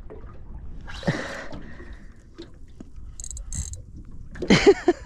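An angler breathing hard and grunting while fighting a large fish on a bent rod, over faint water against a small boat's hull: a hard exhale about a second in, two short high clicks past the middle and wordless grunts near the end.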